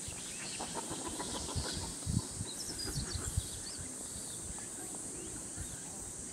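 A few short, high chirping calls about halfway through, over a steady high-pitched hiss, with scattered low thumps.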